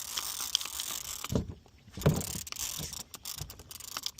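Fishing reel ratcheting with a fast run of fine clicks as line is wound in, with a few dull low thumps about halfway through.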